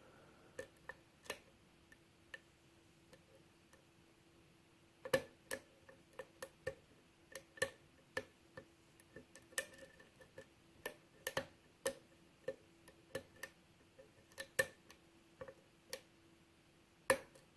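Lock pick and tension wrench working the pins of a 6-pin Euro cylinder lock with a paracentric Yale Y1 keyway: small irregular clicks and ticks as the pins are lifted and set. A few come in the first two seconds, then they come much more often from about five seconds in, over a faint steady hum.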